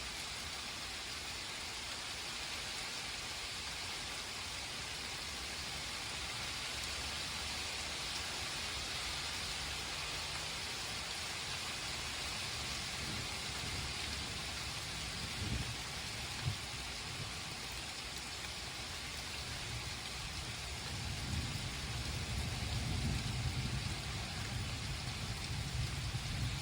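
Steady rain hissing down in a thunderstorm. There are two brief thumps about halfway through, and a low rumble swells in the last few seconds.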